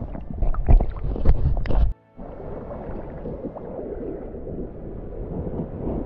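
Shallow river water splashing and sloshing close to the camera as a gloved hand moves a stone through it, for about two seconds. The sound then cuts off abruptly, and a steadier, quieter background follows.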